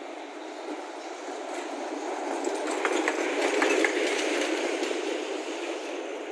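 Tram passing on street tracks, its wheels clicking over the rails; the noise swells to its loudest about halfway through and then fades.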